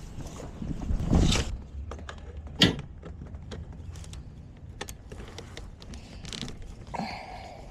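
Scattered clicks, knocks and scrapes of tools and metal parts being handled, with one sharp click about two and a half seconds in and a short creak near the end.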